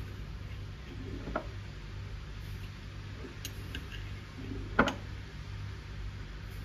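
A few light clicks and taps, the loudest a sharp knock about five seconds in, over a low steady hum.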